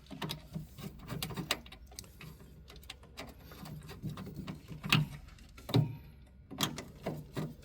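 Scattered small clicks and knocks of hands handling wires and pushing small plastic wire plugs onto a circuit board's pin headers, with a couple of louder knocks about five and six seconds in.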